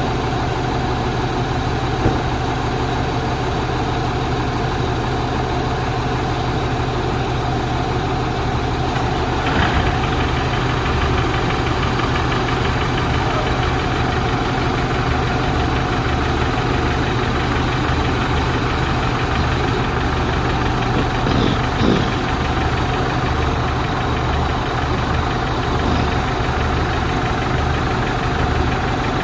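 Truck engine idling steadily, its low rumble starting to pulse unevenly about a third of the way in, with a few brief knocks.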